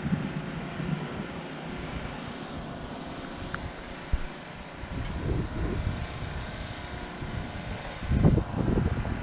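Wind buffeting the microphone in uneven gusts, a low rumble over a steady rushing hiss, strongest about five seconds in and again near the end.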